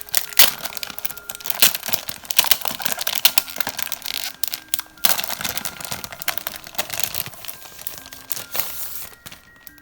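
Packaging crinkling and rustling in irregular crackles as a set of photo prints is handled and unwrapped.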